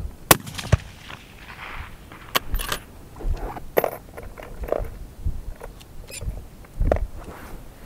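A Palma target rifle fires a single sharp shot about a third of a second in, followed by a series of lighter clicks and knocks, with wind rumbling on the microphone.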